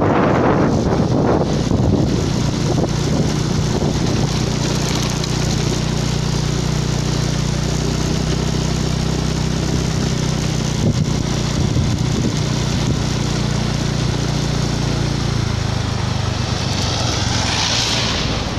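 Engine of the vehicle carrying the camera, running steadily under load as it climbs a hill, with wind rushing on the microphone at the start and a brief hiss near the end.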